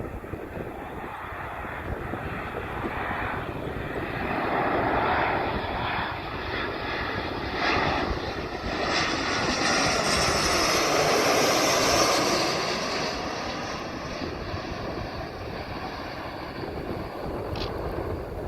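Airplane engines passing close by: the rushing engine noise builds, is loudest about two-thirds of the way through, then fades.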